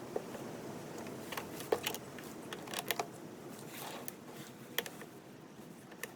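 Irregular small metal clicks and knocks from bolts, nuts and the snowblower's auger blade being handled and fitted, the loudest about two, three and five seconds in.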